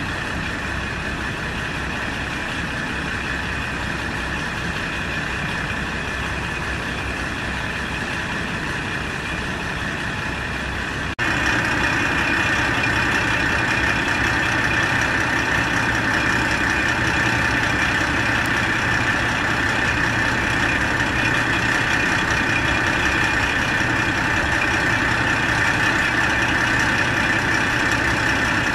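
Diesel railcars (KiHa 40-series and KiHa 185-series) idling at a standstill, a steady engine hum. About eleven seconds in it cuts to a louder, closer idle with a steady low drone.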